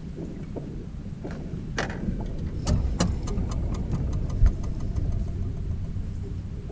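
A low rumble runs steadily throughout. About two to four seconds in comes a run of sharp clicks and knocks on the boat as a landing net is grabbed and swung out to a hooked fish, with one louder thump about four and a half seconds in.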